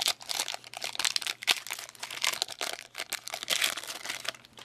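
Crinkly trading-card pack wrapper rustling and crackling as it is handled, stopping near the end.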